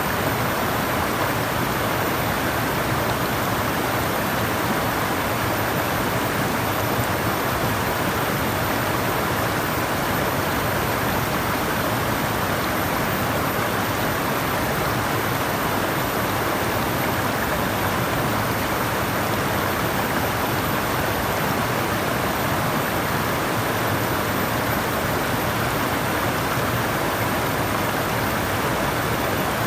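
Flowing water rushing steadily, an even continuous splashing hiss.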